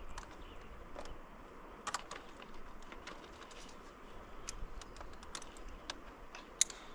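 Scattered light clicks and clinks of a Metolius stick clip and a quickdraw being handled and fitted together, irregular and small, with one sharper click near the end.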